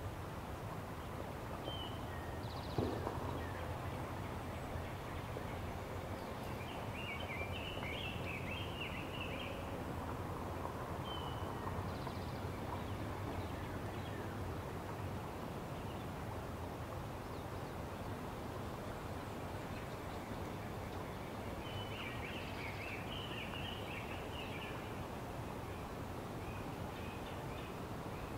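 Steady outdoor ambience with bird calls: a burst of chirping about seven seconds in and again about twenty-two seconds in, with a few short single notes between. A single thump about three seconds in.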